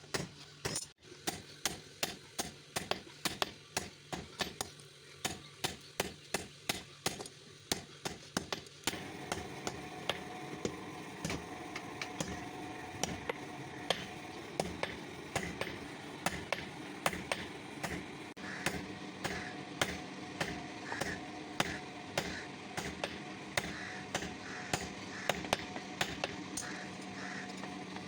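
Hammer blows on a metal rod being forged, struck at a steady pace of about two a second. About nine seconds in, a steady hum joins, and the blows go on lighter beneath it.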